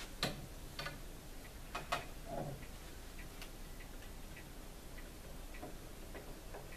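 Clicks and a knock from handling the tone arm and reproducer of a 1915 Victrola VV-IX phonograph, sharpest in the first two and a half seconds. Faint light ticks follow, about two a second.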